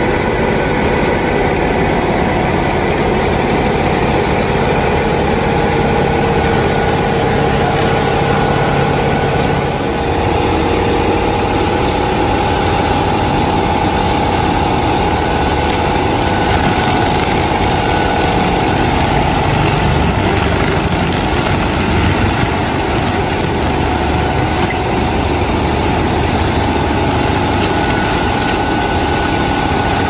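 Tractor-mounted forestry mulcher at work: the tractor's engine runs steadily under load as the mulcher shreds brush, a continuous drone with a steady whine over it.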